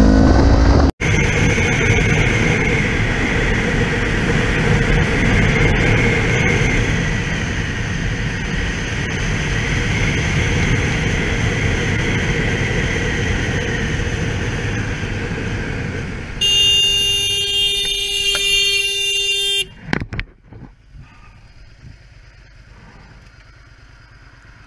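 Motorcycle being ridden at speed, with engine and wind noise. About two-thirds of the way through, a vehicle horn sounds one steady blast lasting about three seconds, after which the sound drops sharply.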